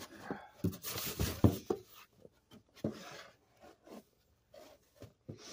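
Stack of comic books being pulled by hand out of a cardboard shipping box: paper rustling and sliding against the cardboard, with a few light knocks, busiest in the first two seconds and then fainter.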